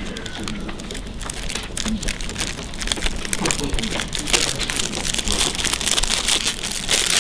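Clear plastic candy bag crinkling as it is handled and rummaged through, growing louder and busier toward the end.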